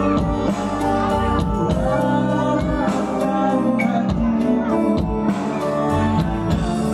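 Live band music: an electric guitar played through an amplifier over keyboard and a steady drum beat.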